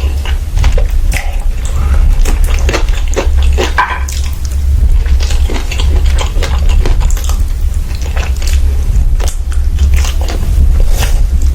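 Close-miked eating sounds: chewing and mouth noises with many short irregular clicks, over a steady low hum.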